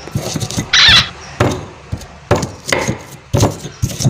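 Stone pestle grinding and pounding garlic cloves with salt in a stone mortar (Indonesian cobek and ulekan): irregular crunching, scraping strokes of stone on stone, with one louder, harsher scrape about a second in.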